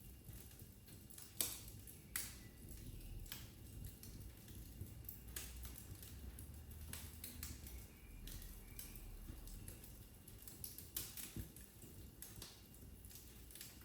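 Wood fire crackling in a fireplace: irregular sharp pops and snaps over a soft, steady low rumble of the flames, the loudest snap about a second and a half in.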